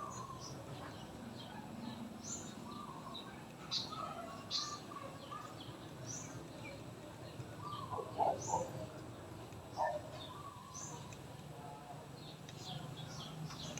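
Small birds chirping with short, high calls scattered throughout, over a steady low background hum. The loudest moments are a few short, lower-pitched sounds about two-thirds of the way through.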